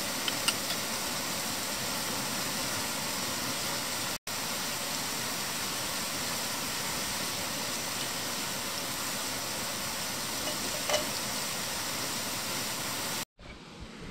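A steady rushing hiss, with a couple of light metal clinks about half a second in as a brass simmer ring is set down on a mini Trangia spirit burner. The hiss cuts out for an instant about four seconds in.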